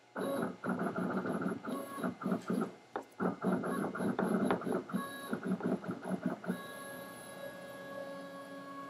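Stepper motors of a home-built CNC gantry driving the carriage along the beam. The whining tone changes pitch and stutters through a string of short moves, then holds one steady tone for the last couple of seconds before stopping suddenly.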